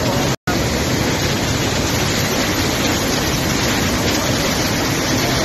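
Flash-flood torrent of muddy water rushing, a loud, steady rush of water, broken by a brief silent gap about half a second in.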